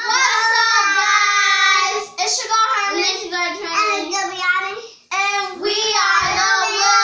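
A child singing in long, held notes, with a short break about five seconds in.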